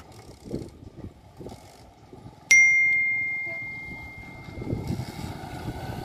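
Subscribe-button animation sound effect: a click at the very start, then about two and a half seconds in a single bell ding at one clear pitch that fades away over about three seconds. A low, uneven outdoor rumble sits underneath.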